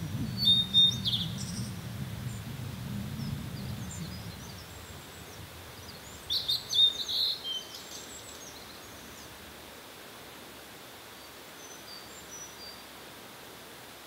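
Blue-and-white flycatcher singing: a burst of high, quick whistled notes about a second in and another about six seconds in, with a few faint notes near the end. A low rumble fades out in the first four seconds, over a steady hiss.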